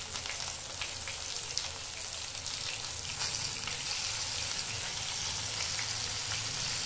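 Rice-flour-and-besan-coated Bombay duck (bombil) fish frying in hot oil in a pan: a steady, dense sizzle with many small crackling pops.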